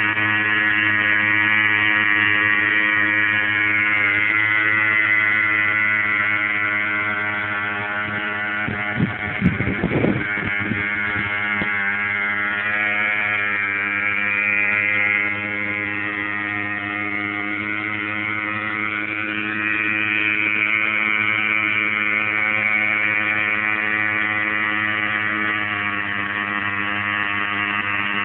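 Small weedeater engine running steadily while it drives a homemade propeller, its pitch wavering slightly. A few knocks about nine to ten seconds in.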